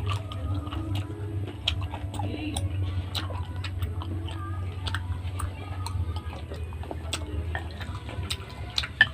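Close-miked eating sounds: wet, irregular clicks and smacks of chewing seafood, with a loud click near the end, over a steady low hum.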